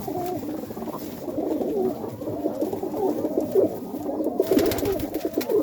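Several domestic pigeons cooing in a loft, their calls overlapping without a break. A brief rustle about four and a half seconds in.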